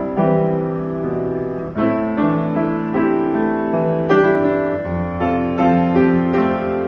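Yamaha WX5F upright piano being played: full chords struck one after another, about one a second, each left ringing into the next.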